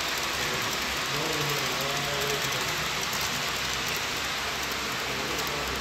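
Model train running on the layout: a steady, even rolling hiss with a low hum beneath it. Faint voices come through about a second in.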